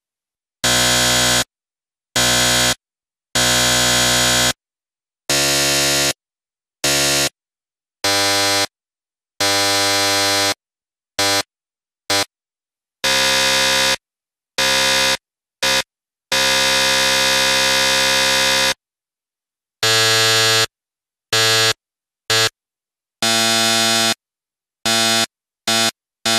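A series of electronic buzzers, the harsh wrong-answer kind used on quiz and game shows, sounded one after another with silent gaps. The buzzes vary in length from short blips to one held for over two seconds around the middle, and differ in pitch from one to the next.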